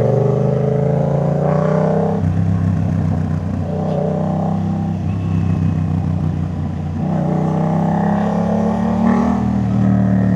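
Yamaha MT-07's parallel-twin engine through a Jeskap full exhaust system, accelerating under way. Its pitch rises for about two seconds, drops sharply at a gear change, and climbs again in the second half.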